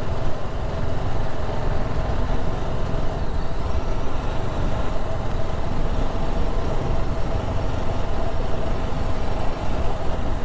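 Motorcycle riding along at a steady pace, heard from the rider's seat: the engine running evenly with a steady hum, under a constant low rush of wind noise.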